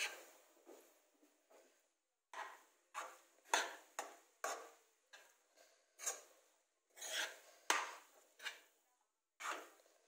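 A metal spoon stirring cooked rice and grated carrot around a pan, in separate scraping strokes about one or two a second, with a short pause about two seconds in. A few sharper knocks come where the spoon hits the pan.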